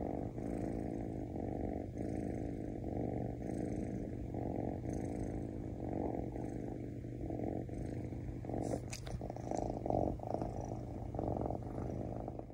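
Kitten purring steadily, held close, the purr swelling and easing with each breath in an even rhythm. A few light clicks come about nine seconds in.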